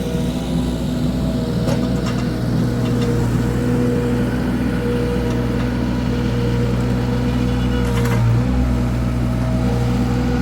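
Mini skid steer's diesel engine running steadily under load, with a steady high hydraulic whine over it and a few sharp metallic clanks.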